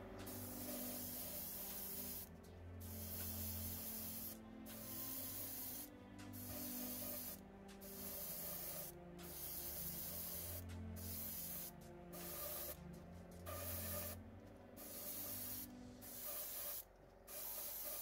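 Spray paint hissing in about a dozen short bursts with brief pauses between them, as a small model car body part is coated.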